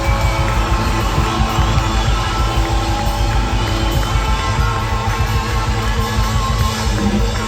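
A band playing a loud, steady rock jam, led by guitar over a heavy low end.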